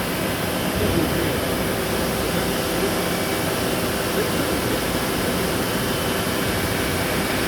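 Steady machine-shop drone: a constant mechanical hum and rush of running equipment, with faint voices underneath.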